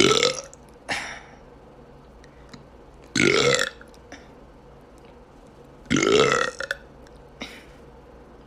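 A man forcing himself to burp three times, about three seconds apart. Each burp is short and loud and rises in pitch.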